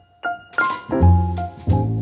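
Background jazz music on piano: a soft single note, then full piano chords over a bass line come in about half a second in.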